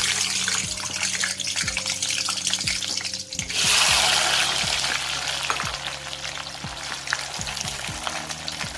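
Small whole Indian gooseberries sizzling and crackling as they deep-fry in hot oil in a steel kadai. The sizzle swells sharply about three and a half seconds in as a larger batch goes into the oil, then slowly eases.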